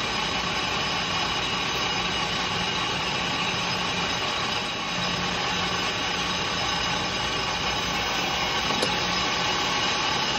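Metal lathe running steadily while its cutting tool turns a deeper dish into an aluminium A-series piston crown, an even mechanical hum with several faint constant tones.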